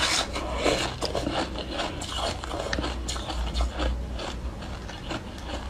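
Frozen milk ice being bitten and chewed, with many short, sharp crunches and crackles, densest just after the bite at the start.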